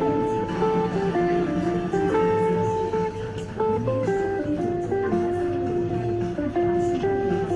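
A stock Samsung Galaxy S22 ringtone playing through the phone's speaker: a gentle melody of guitar-like plucked notes moving from note to note about every half second.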